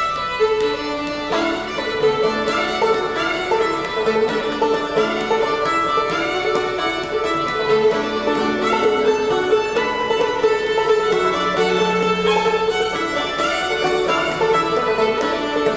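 Old-time instrumental tune played on a fiddle and a clawhammer banjo: a driving bowed fiddle melody over quick, steady banjo picking.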